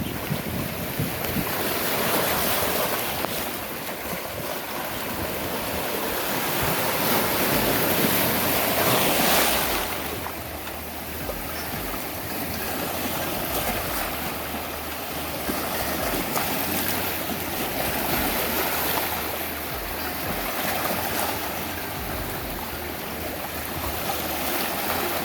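Sea waves washing in and out, swelling and fading every few seconds, with wind buffeting the microphone.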